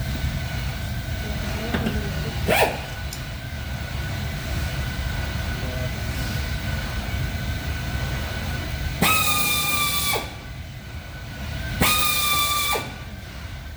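Steady low rumble, broken near the end by two horn blasts of about a second each, a few seconds apart, each pitch sagging slightly as it goes. A brief rising sweep sounds early on.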